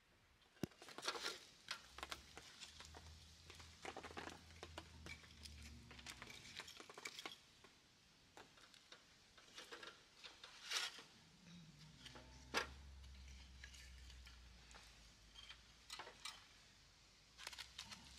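Split wooden kindling sticks being laid by hand over a small fire in a metal fire stand: scattered light wooden knocks and clatter, with a few sharper clicks.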